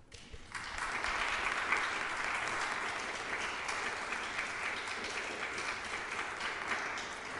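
Audience applauding, starting suddenly from silence and filling out within the first half-second, then holding steady.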